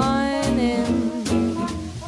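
Small swing jazz band playing, with trumpet, guitar, double bass and drums.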